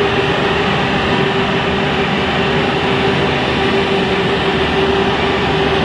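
Hydraulic vulcanizing press machinery running steadily: an even, loud noise with a constant mid-pitched hum.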